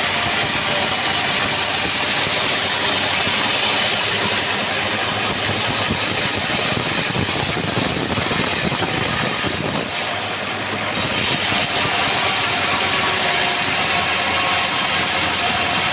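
Homemade bandsaw sawmill running steadily, an even machine noise with a brief dip in level about ten seconds in.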